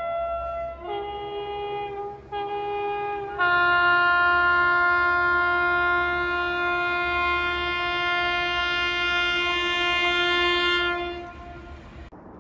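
Multi-chime train air horn sounding a chord: a held note ends just under a second in, two short blasts follow, then a long, louder blast is held for about seven seconds before fading out near the end, over a low rumble.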